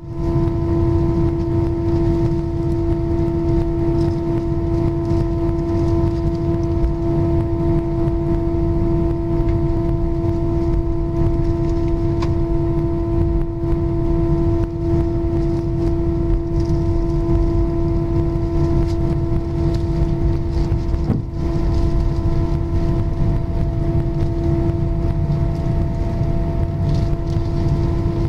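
Airbus A319 cabin noise while taxiing: the jet engines' steady hum, one strong constant tone with fainter higher tones over a deep rumble.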